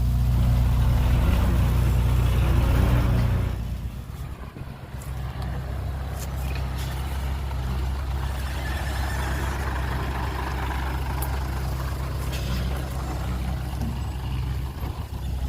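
Heavy truck engine running steadily, loud at first; about four seconds in it drops to a quieter, lower running sound that continues.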